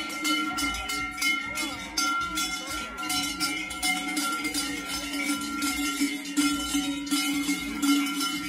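Large cowbells strapped to the waists of masked carnival figures, clanging irregularly as they walk, with a steady ringing under the clanks.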